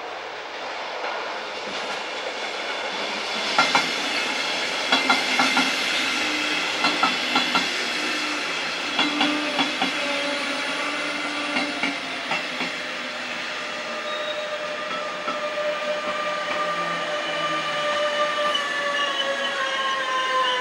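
Electric Regional-Express train of double-deck coaches running past: its wheels click over rail joints in quick groups, then the electric locomotive's motor whine comes in as several tones that slowly fall in pitch near the end.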